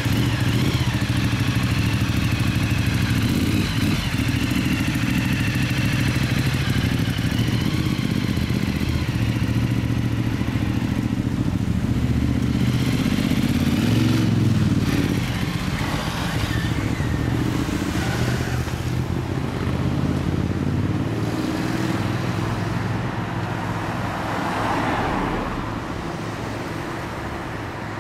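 Motorcycle engine running at a steady speed, growing quieter over the last few seconds.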